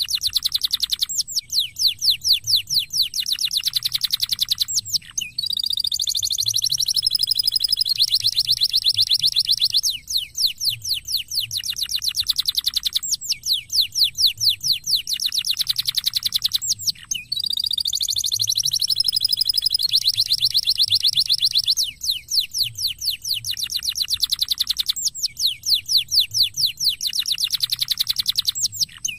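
Domestic canary singing: long, fast trills of rapidly repeated high, falling notes, broken by short pauses, with a more drawn-out warbling phrase twice.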